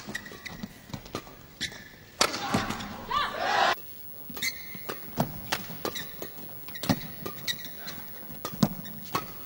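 Badminton rackets striking the shuttlecock in a string of sharp hits, with short squeaks from court shoes. A couple of seconds in, a loud burst of crowd shouting and cheering marks the end of a point, and the hits start again soon after.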